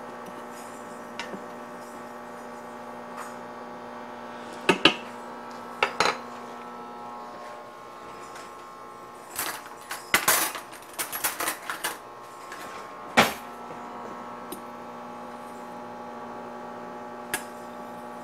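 Kitchen utensils, wooden spoons and a metal fork, knocking, clinking and scraping against an Instant Pot's stainless steel inner pot in scattered clusters, busiest a little past halfway, over a steady electrical hum.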